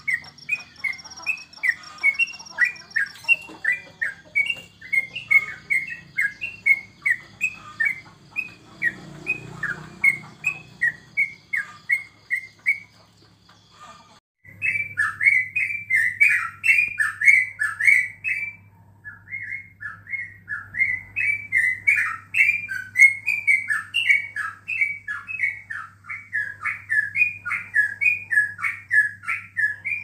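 Caged yellow-vented bulbul (trucukan) singing a long, unbroken run of short chirping notes, several a second. The song breaks off briefly about 14 seconds in and then resumes louder, over a steady low hum.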